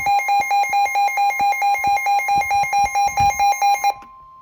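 A weather radio's alarm beeping about four times a second over the steady NOAA Weather Radio warning alert tone, the signal that a warning is being broadcast. The beeping stops near the end, leaving the steady tone sounding on its own.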